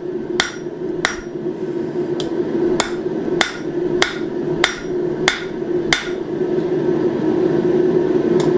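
Hand hammer striking hot steel bar stock on an anvil, drawing a pointed taper by working all four corners, at about a blow and a half a second with a short ring after each. The blows stop about six seconds in, and one more lands near the end, over a steady hum.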